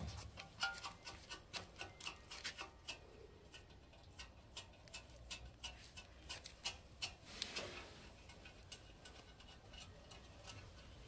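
Irregular light clicks and taps of hard plastic parts being handled and fitted as a petrol generator's air-filter housing is put back on, with a short scrape about seven and a half seconds in.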